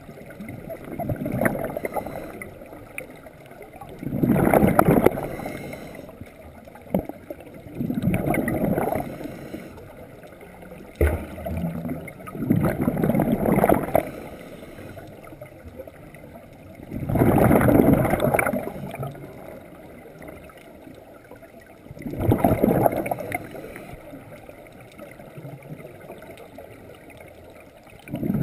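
Scuba diver breathing through a regulator underwater: a burst of gurgling exhaust bubbles with each exhale, about every four to five seconds, six times. A single sharp click about eleven seconds in.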